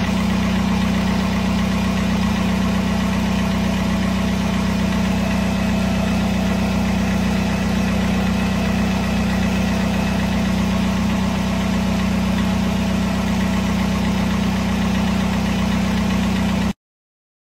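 Car engine idling steadily with a strong knocking noise. It cuts off suddenly near the end.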